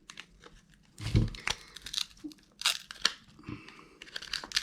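Cracked screen being pried off a mobile phone: a run of irregular cracks and crackles as the glass and adhesive give way, with a dull knock about a second in.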